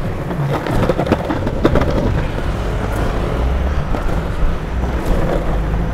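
Longboard wheels rolling over rough, patched tarmac with a steady low rumble, broken by short clicks and knocks as they cross cracks and joints, several of them a second or two in.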